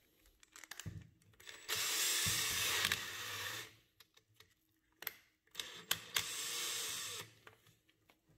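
Ryobi cordless drill running in two bursts, about two seconds and then one second long, spinning a knurled brass nut chucked on a bolt. Clicks and knocks of handling the drill and chuck come between the bursts.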